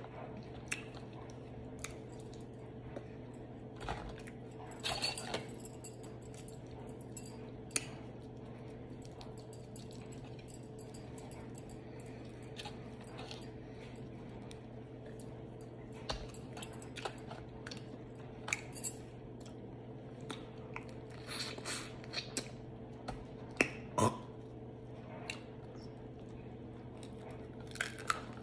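Crab-leg shells cracking and clicking as they are picked apart by hand, with chewing and lip smacks in between, scattered and irregular, over a steady low hum.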